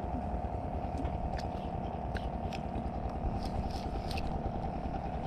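Steady engine hum from a fishing boat over a low rumble, with scattered light clicks and ticks.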